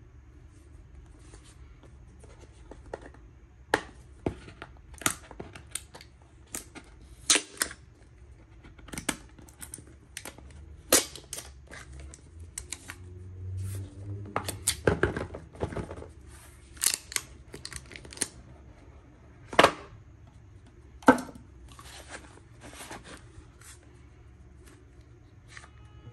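A cardboard product box handled by hand on a wooden surface: a string of irregular taps, knocks and clicks as it is turned and set down, with a longer rustling scrape about halfway through. Two sharper knocks come near the end.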